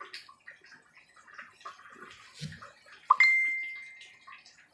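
Faint bubbling and small pops of curry soup simmering in a pan on the stove. About three seconds in, a single clear ding rings out and fades away over about a second and a half.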